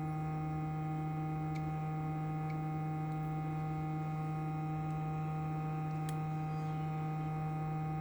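Steady electrical mains hum: a low, unchanging tone with its overtones, and one faint click about six seconds in.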